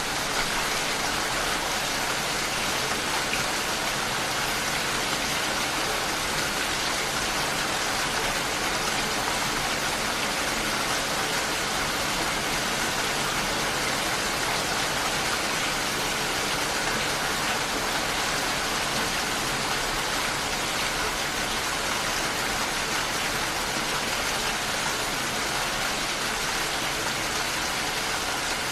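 Steady rain falling, an even hiss of rain on surfaces with no break or change in strength.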